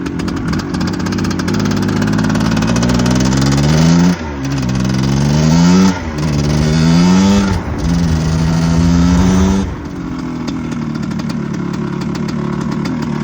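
Motorcycle engine accelerating hard through the gears: the pitch climbs, drops sharply at each of three quick upshifts, then the throttle is closed about ten seconds in and the engine settles to a lower, steadier run.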